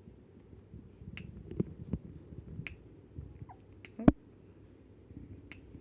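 Baby hiccuping: a string of short, sharp hiccups at uneven spacing, about seven in all, the loudest about four seconds in.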